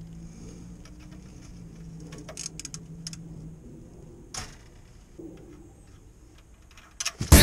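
A few light metallic clicks of a wrench working the oil drain plug loose on a Subaru Impreza's sump, over a faint low hum. Loud music starts near the end.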